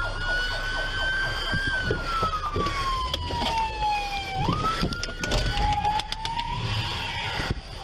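Police car siren wailing, each cycle jumping up quickly and then sliding slowly down in pitch. It breaks off about five and a half seconds in, comes back briefly, and fades out near the end, with a few short knocks underneath.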